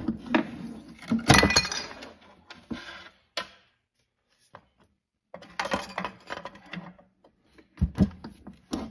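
Bench lever guillotine shear cutting through a metal armor plate: a sharp crack as the blade bites, then metallic scraping and clinking for about two seconds. After a short pause there is more clanking and a few knocks as the plate is shifted on the shear's steel bed.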